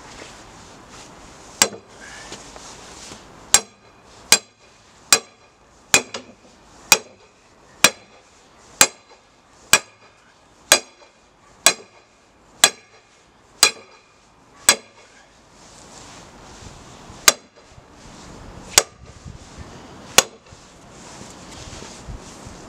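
Hammer blows on the top of a threaded steel rod, driving it down through the timber base frame into the ground. About fourteen sharp strikes come roughly one a second, then three more, spaced further apart, near the end.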